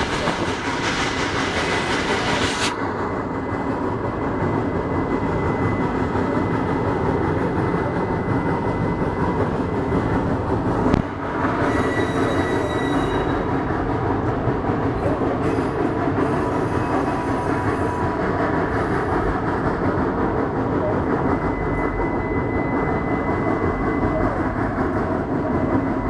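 A geared steam locomotive hauling open passenger cars, heard from aboard the train: a steady rumble of wheels and running gear on the rails, with a thin wheel squeal on the curve. There is a single sharp knock about eleven seconds in.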